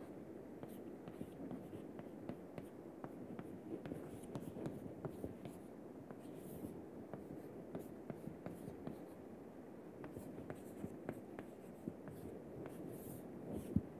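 Chalk writing on a chalkboard: faint scratching with many quick taps of the chalk, and one short, louder sound near the end.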